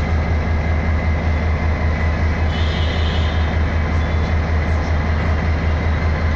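Diesel locomotive engine running with a steady low throb and a regular pulse. A brief higher-pitched hiss comes in about two and a half seconds in.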